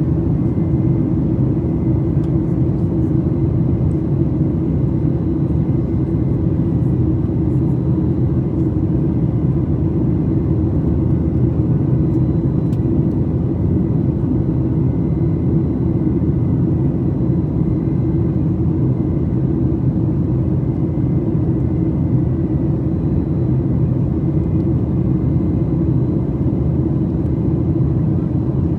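Steady drone of a Boeing 737 MAX 8 heard from inside the passenger cabin: its CFM LEAP-1B turbofan engines and the rush of air along the fuselage, a deep rumble with faint steady whine tones above it.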